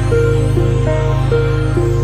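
Background music: a gentle melody stepping from note to note about twice a second over a steady low bass.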